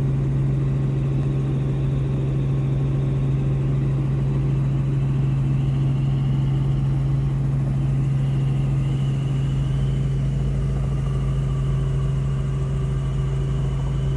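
Steady drone of a light helicopter heard from inside the cabin, built on one strong deep hum, with a faint high whine joining about halfway through.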